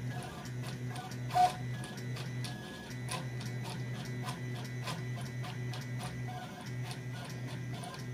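3D printer's stepper motors running as they drive a pen across paper in plotter mode, a steady hum that pauses briefly now and then. Many short ticks come from the pen lifting and dropping to make little dots, with one sharper click about one and a half seconds in, over soft background music.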